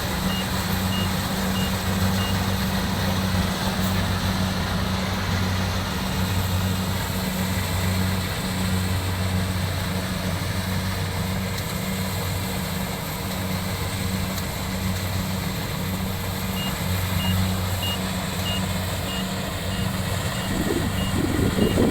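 Combine harvester running steadily with a low engine drone. A high warning beeper sounds about three times a second at the start and again from about three-quarters of the way through.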